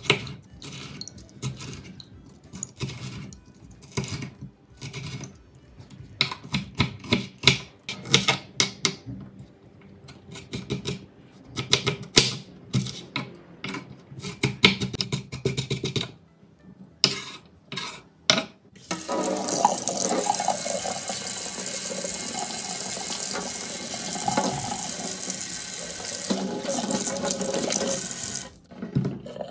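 Kitchen knife chopping red bell pepper on a wooden cutting board, in quick irregular knocks. About two-thirds of the way in, a kitchen tap starts running steadily into a stainless steel sink as a peeled onion is rinsed under it, and it cuts off sharply just before the end.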